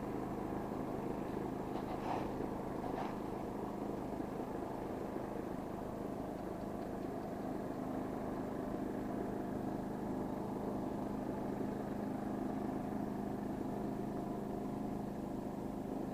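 Small inboard engine of a wooden river boat running steadily at low, even speed. Two faint clicks come about two and three seconds in.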